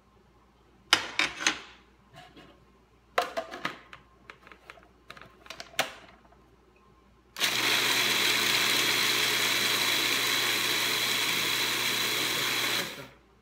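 Food processor running steadily for about five seconds, grinding sliced almonds and sugar into a fine meal, starting and stopping abruptly. Before it, a few sharp plastic clicks and clatter as the lid and feed-tube pusher are fitted.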